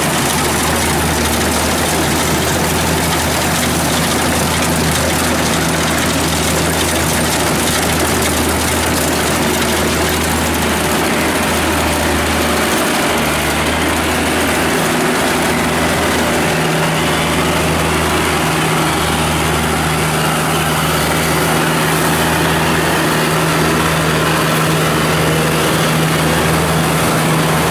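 Kubota DC70 combine harvester's diesel engine running steadily as the machine cuts and threshes rice, a loud low drone over a constant hiss. About halfway through the drone begins to pulse slowly, and a higher steady hum joins soon after.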